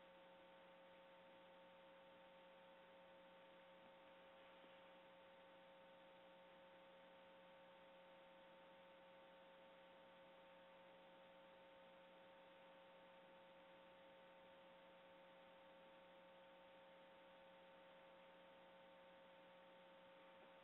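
Near silence: faint steady hiss with a thin, unchanging hum of a few steady tones.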